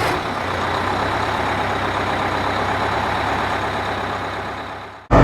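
Heavy vehicle engine, likely the bus's, running steadily with a low hum and a wash of noise, fading out near the end.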